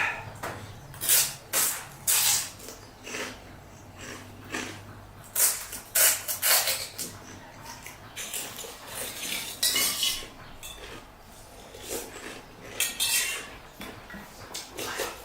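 Eating pani puri close to the microphone: an irregular run of short, sharp crunches and clinks, a few each second.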